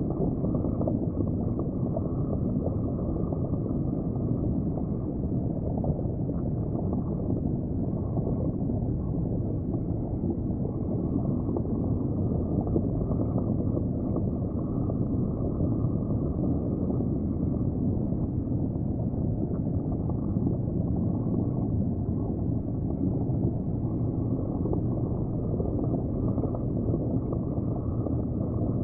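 Steady, muffled underwater rumble of water in an aquarium tank, with no distinct events.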